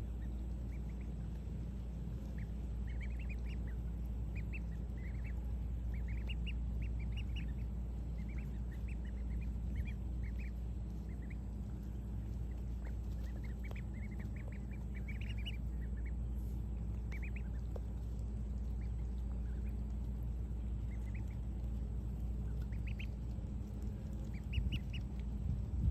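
Ducklings peeping: many short, high chirps in quick clusters, over a steady low hum.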